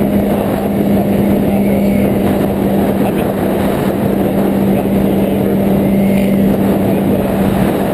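2005 Honda CBR600RR's inline-four engine running at a steady cruising speed, one unchanging engine note under a heavy rush of riding wind on the microphone.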